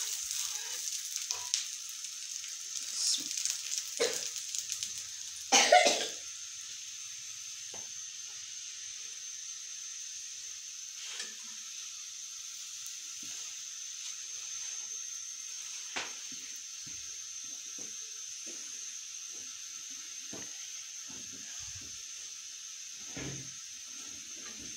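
Ghee sizzling under a lachha paratha frying on a hot iron tawa: a steady high hiss. There is a brief louder burst about six seconds in, and a few light taps later on.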